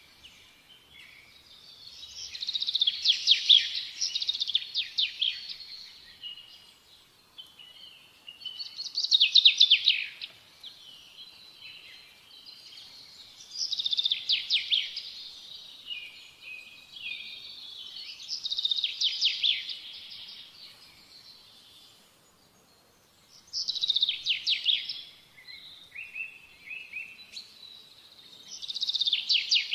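A songbird singing, repeating a short phrase of rapid, trilled high notes about every five seconds.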